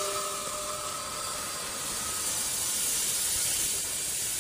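Steady hiss, brightest in the high range, with faint held tones that fade out within the first two seconds.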